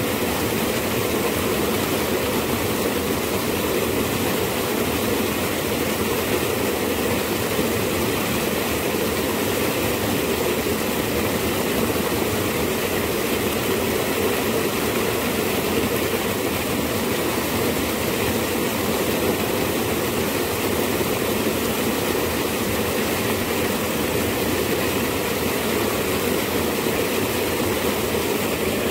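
Fast-flowing water of a narrow irrigation canal rushing and churning white close by: a steady, even rushing noise.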